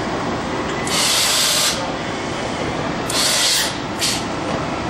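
Steady running noise of a large Okuma double-column CNC machining center, broken by two bursts of compressed-air hiss, about a second in and about three seconds in, and a shorter hiss near the end.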